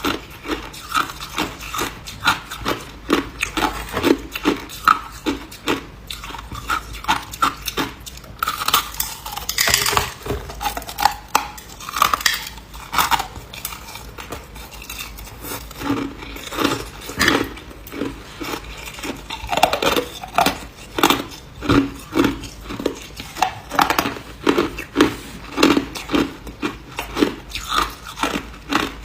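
Ice being chewed close to the microphone: a steady run of crunches, about two a second, with a few sharper, louder bites.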